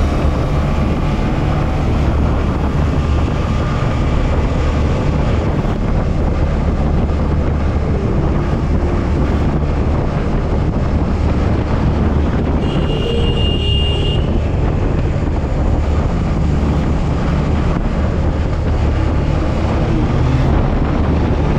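Motorcycle engine running steadily under way, with wind rush on the microphone. A brief high steady tone sounds for about a second and a half, about two-thirds of the way through.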